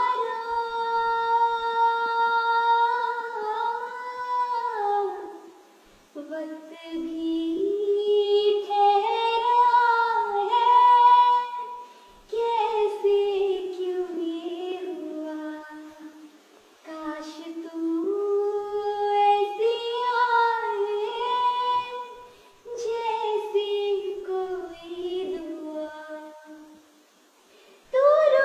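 A girl singing unaccompanied in a high voice, in long sung phrases with short breaks between them.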